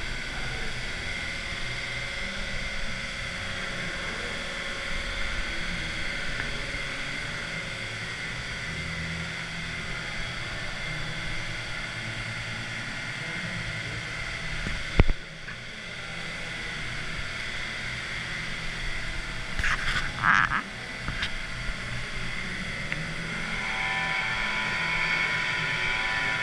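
Steady hum and hiss of stone-shop machinery, with one sharp knock about halfway through and a brief louder rush of noise a few seconds later.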